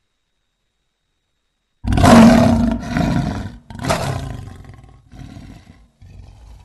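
Big-cat roar sound effect standing for a cave leopard: after about two seconds of silence, one loud rasping roar, then two shorter calls that grow weaker and trail off into quieter low grunting rumbles.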